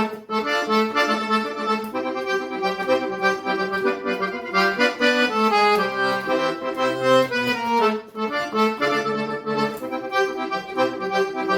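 Accordion playing an instrumental melody over bass notes, with a short break in the phrase about eight seconds in.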